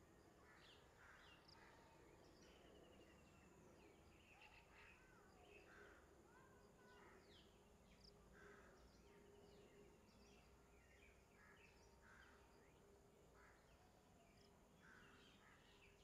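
Faint natural ambience: many scattered short bird chirps and calls over a faint steady drone.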